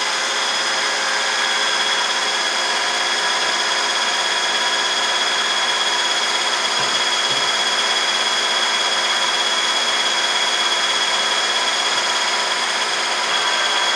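Bohle FW 100/85 horizontal milling machine running under power, spindle turning. It makes a steady mechanical running noise with several constant whining tones over it.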